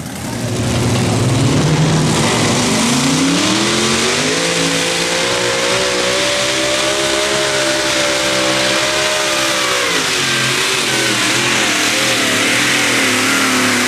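Competition pulling tractor's engine revving up over a couple of seconds and held at high revs for about five seconds, then dropping back about ten seconds in and wavering at lower revs.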